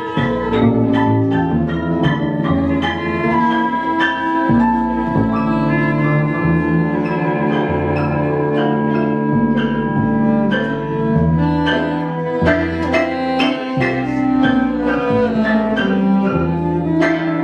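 Live acoustic ensemble playing without words. Bowed double bass and cello hold low notes that change every second or so, with plucked notes over them. Soprano saxophone and wind instruments carry a higher melodic line.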